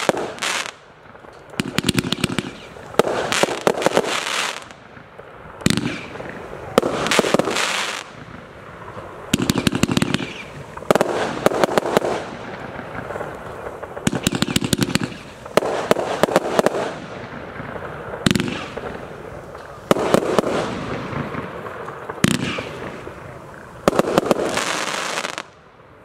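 TROPIC TB402 'Armageddon' 122-shot fireworks battery firing: volleys of shots launching and bursting with crackle, coming in repeated waves a second or two apart.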